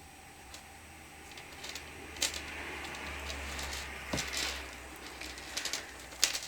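Faint handling noises of hands working string and craft materials: soft rustling with a few light clicks and taps.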